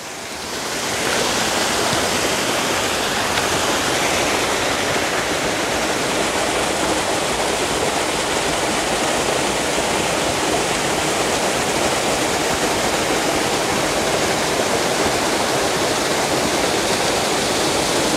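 Water pouring over an old stone dam in a steady rush, swelling over the first second and then holding even.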